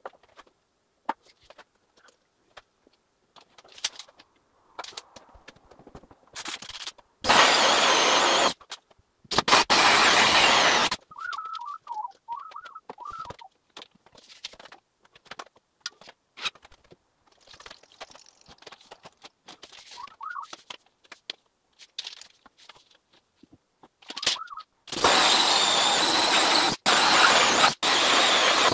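Power drill boring holes for ceiling spotlights through wooden ceiling boards: three runs at full speed, a short one about seven seconds in, another a second later, and a longer one of three to four seconds near the end, with small knocks and handling clicks between.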